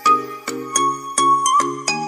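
Background music: a steady pattern of chiming, struck notes, about two or three a second.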